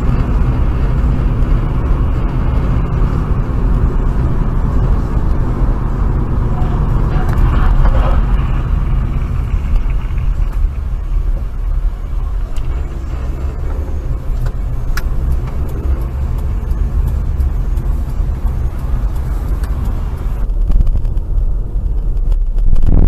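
Steady road and engine rumble of a car driving in traffic, heard from inside the car. The sound changes abruptly about twenty seconds in, when another in-car recording begins.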